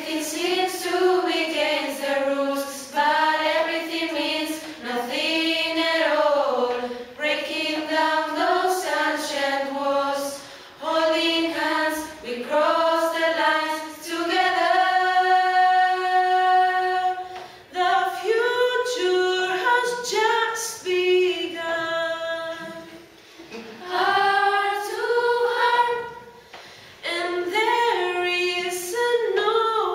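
A group of young voices, mostly female, sing a song in unison without instruments, in phrases of a few seconds with short breaks between them and some long held notes in the middle.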